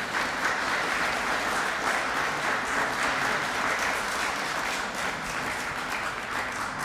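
Audience applauding, dense steady clapping that starts to die away near the end.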